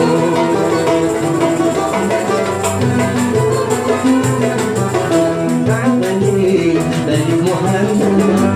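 Algerian chaâbi ensemble playing an instrumental passage: banjos, piano and violin carrying the melody over a steady beat from the tar frame drum and mizan drum.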